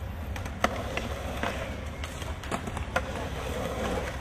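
Skateboard wheels rolling, a steady low rumble, with several sharp clacks of the board.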